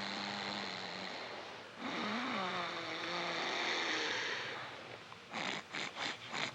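A person's loud snoring played back from a tape recording: two long snores of about two and a half seconds each, then a quick run of short snorts near the end.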